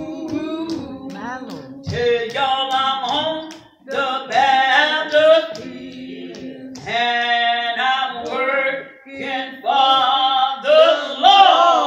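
An elderly woman singing a gospel song unaccompanied into a handheld microphone, in phrases with long held notes.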